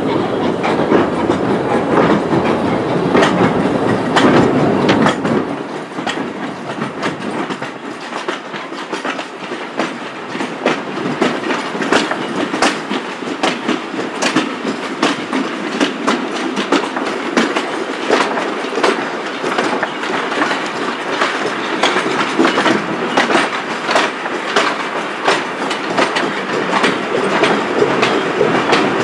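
A vintage railway carriage's wheels rolling over jointed track, clicking over the rail joints and pointwork. A heavier rumble for the first five or so seconds gives way to lighter running with many sharp clicks.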